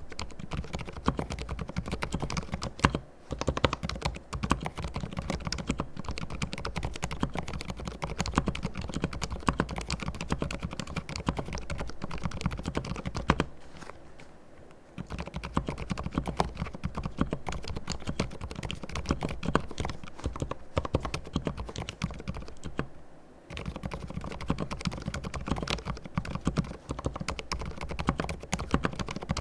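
Continuous fast typing on a mechanical keyboard with fully lubricated silent red linear switches, giving soft, damped key presses. It pauses briefly about three seconds in, again near the middle, and once more later on.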